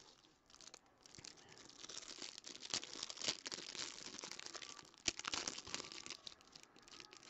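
The clear plastic wrapping of a trading card pack is torn open and crinkled by hand: a crackly rustling with sharp snaps, loudest about three and five seconds in.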